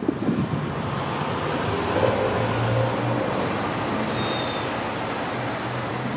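Road traffic noise from cars idling in a queue, with a steady low engine hum. Another car drives up behind them near the end.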